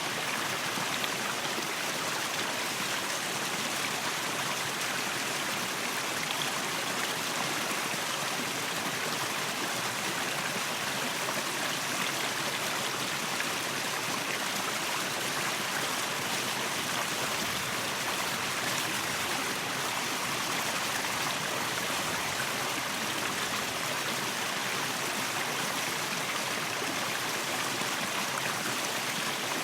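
Waterfall: a steady, unbroken rush of falling, splashing water, more hiss than deep rumble.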